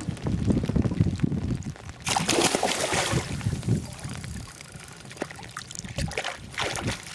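Water splashing beside an inflatable boat as a hooked pike thrashes at the surface, loudest about two seconds in, then a hand plunging into the water to grab the fish near the end. Wind rumbles on the microphone at the start.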